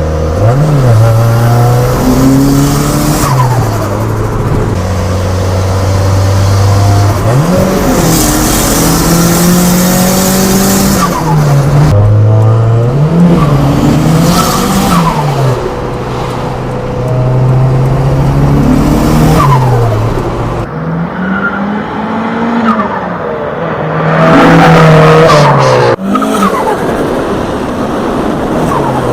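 A car engine under hard acceleration, its pitch climbing and then dropping back again and again as it changes gear, with a few abrupt cuts between passages.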